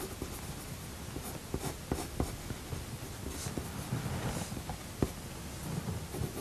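Coloured pencil scratching on drawing paper in quick short shading strokes, with a few soft taps of the point. The pencil is laying in dark tone over the shadowed areas of curly hair.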